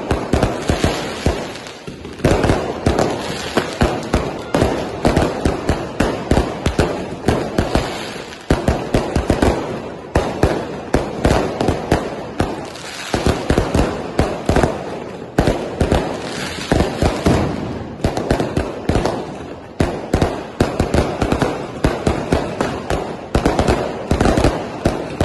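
Fireworks going off in a fast, continuous volley of sharp bangs and crackles, with a few brief lulls.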